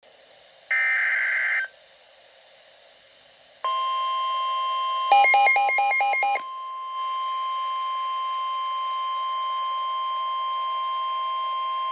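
NOAA Weather Radio Emergency Alert System signal. About a second in comes a one-second screechy warble of SAME digital header data. From near four seconds the steady 1050 Hz warning alarm tone sounds, and a rapid pulsing electronic beeping overlaps it for about a second and a half.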